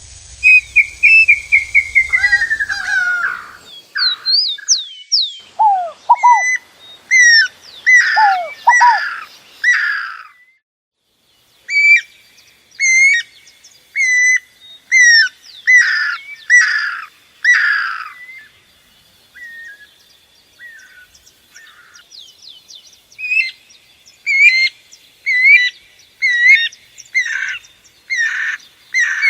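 Songbirds calling and singing. A falling trill opens the passage, then come repeated short sweeping whistled notes, roughly one a second, with a brief pause about ten seconds in and a softer stretch near twenty seconds.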